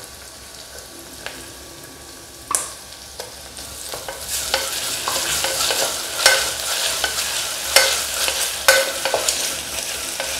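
Wooden spatula stirring and scraping sliced onions frying in oil in a pressure cooker pot, the onions sizzling. A single sharp knock comes about two and a half seconds in, then from about four seconds in the stirring turns vigorous, with sharp knocks of the spatula against the pot.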